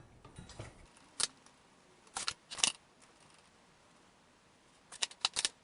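Light metallic clicks and clinks of small inverter parts and hand tools being handled: one about a second in, two more shortly after, and a quick run of clicks near the end.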